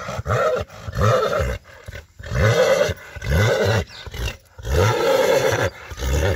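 Marwari stallion giving a run of short, deep rumbling calls one after another, each rising and falling in pitch.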